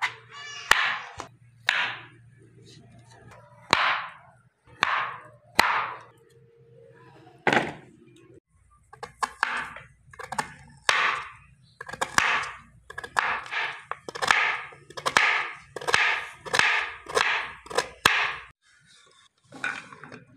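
Kitchen knife slicing through raw cabbage and carrots: crisp cuts, a few spaced out at first, then a steady run of about two cuts a second through the second half, with a few sharp clicks.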